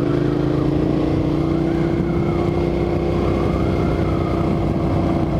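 2008 United Motors V2S 650R motorcycle engine running at a steady cruise, its pitch rising slightly over the first second or so and then holding level, with wind rushing over the helmet microphone.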